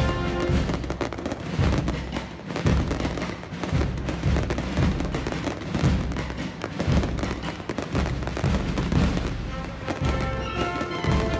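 Background music with a steady low beat, with the bangs and crackle of an aerial fireworks display mixed in beneath it.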